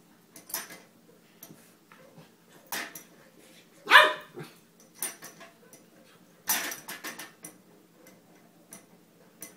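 Puppy barking at a scale, five or so short barks spread through a few seconds, the loudest about four seconds in.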